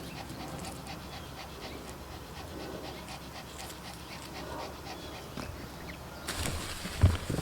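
A dog panting steadily, with a louder thump near the end.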